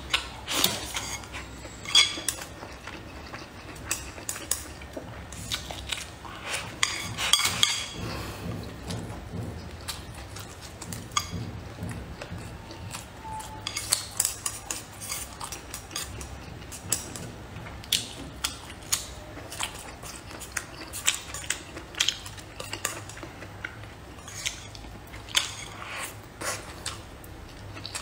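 Chopsticks clicking and scraping against a ceramic bowl, in scattered sharp clinks, with close-up chewing between them.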